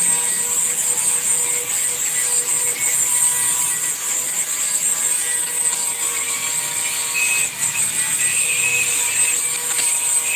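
Steady machine noise: a loud, unbroken high hiss with a faint steady whine beneath it.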